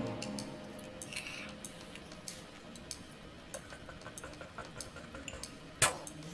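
Faint scattered clicks and light clinks of small objects being handled, with one sharp click near the end.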